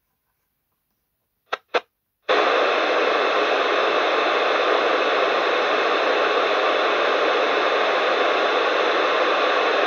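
KDK FM-2033 2 m FM transceiver's speaker: two short crackles, then about two seconds in a loud, steady hiss of receiver noise with no station on the channel, the sound of the squelch opened.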